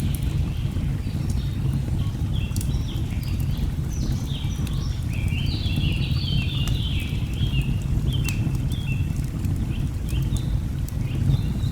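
Layered nature ambience: a steady low rush of falling water under a busy chorus of short bird chirps and trills, with sharp crackles from a burning log fire scattered through.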